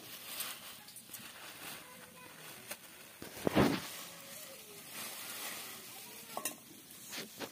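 Thin plastic carry bags crinkling and rustling as they are pulled open and unwrapped by hand. About halfway through there is one short, much louder burst.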